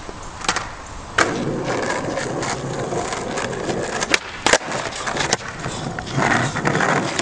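Skateboard wheels rolling on an asphalt road. There is a sharp clack about a second in as the rolling begins, and two more sharp clacks of the board a little past four seconds in.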